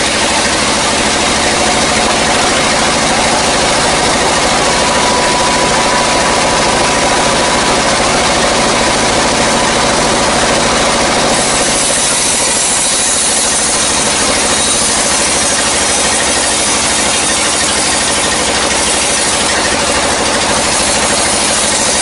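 Sawmill band saw running steadily and cutting through dry kruing wood, a loud continuous rasping noise with a faint whine in the first half.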